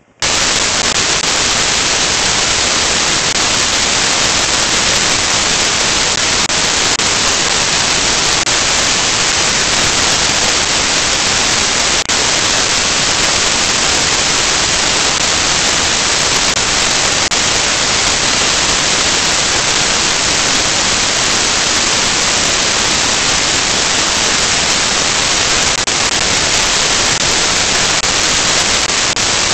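Loud, steady static hiss like white noise. It cuts in suddenly at the start and holds level and unchanging, with no other sound in it.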